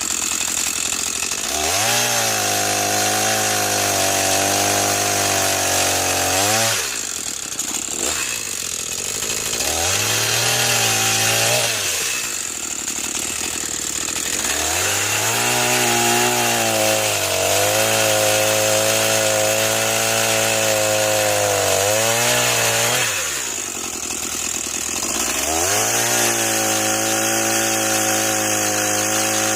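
Echo CS-490 two-stroke chainsaw running near full throttle, its pitch dropping each time it bites into wood and climbing back when it comes free: it goes in and out of cuts about four times.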